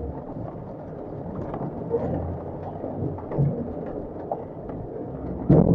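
Rain falling on a Land Rover Defender 110's body and windscreen, heard from inside the cab, over the low running of its engine as it crawls over rock steps. A sharp, loud thump comes near the end.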